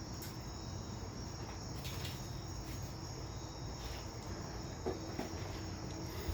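Crickets chirring steadily, with a few light clicks and one small knock about five seconds in from hands-on work at the engine.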